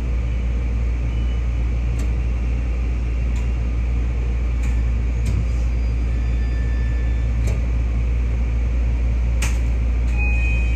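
BEC819 'DENCHA' battery electric train running on battery power, heard from the cab: a steady low rumble with a few faint clicks along the way. A thin steady high tone starts near the end.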